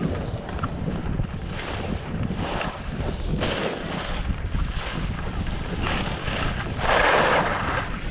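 Wind buffeting an action camera's microphone as a skier descends, with several hissing scrapes of skis on packed snow during turns, the longest and loudest about seven seconds in.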